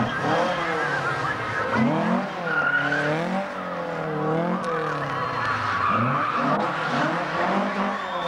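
Opel Kadett C engine revving up and down again and again, about once a second, with its tyres squealing as the car slides through tight turns around cones.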